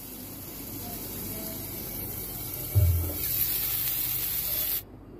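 Diced potatoes and tomato sizzling in hot oil in an iron kadai, a steady hiss that cuts off suddenly near the end. A single low bump comes about three seconds in.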